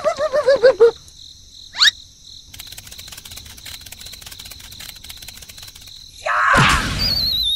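Cartoon sound effects: a quick run of pitched squeaks, a short rising whistle, then a few seconds of cricket chirping as a comic-silence effect. Near the end comes a loud whoosh, followed by a wavy falling whistle.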